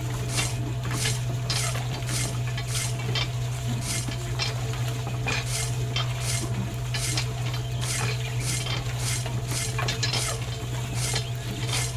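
Small electric motor of a model tractor humming steadily as its slatted roller wheel turns through sand, with an even, rhythmic gritty scrape about twice a second.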